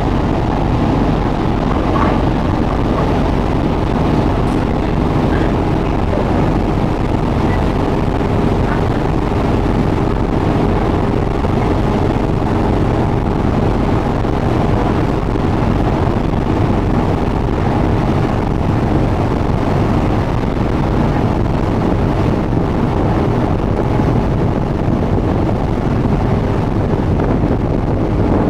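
A small ferry boat's engine running steadily underway, a constant low drone, with wind buffeting the microphone.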